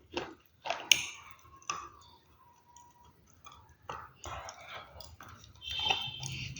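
Crunchy food being bitten and chewed close to the microphone: several sharp crunches in the first two seconds, then softer, irregular chewing and clicking sounds.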